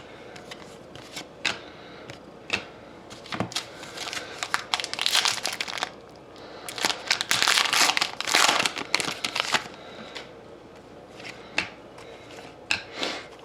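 Plastic wrapper of a Panini Rookie Anthology hockey card pack crinkling and tearing as it is opened, with cards being handled. Scattered sharp clicks, and two longer spells of rustling in the middle.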